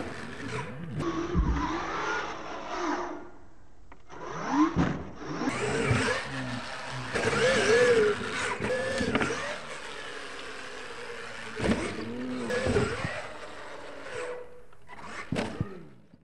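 RC monster truck's motor revving up and down again and again, its pitch rising and falling, with a few knocks from the truck on the dirt.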